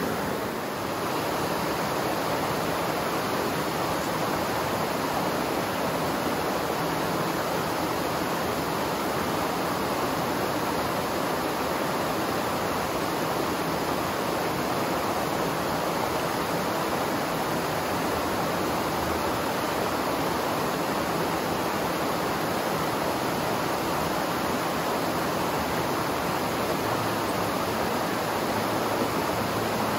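Rushing water of a fast-flowing river or cascade, a steady even rush.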